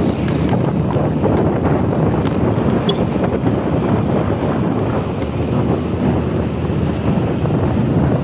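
Steady low rumble of a vehicle travelling at speed, with wind buffeting the microphone.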